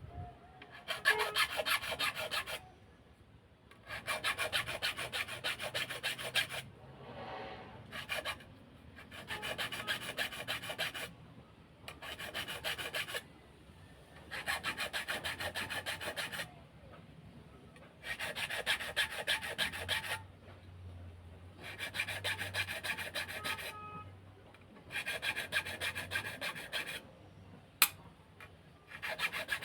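Wood being worked by a hand tool in repeated scraping passes, each lasting about two seconds with short pauses between, about nine passes in all. A single sharp click comes near the end.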